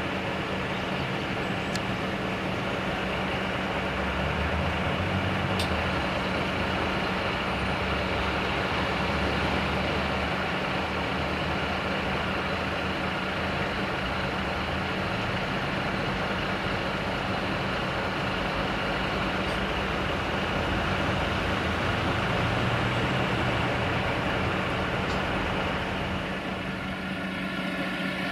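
Heavy truck's diesel engine running steadily with a constant low hum, its low rumble swelling a few seconds in and again near the end.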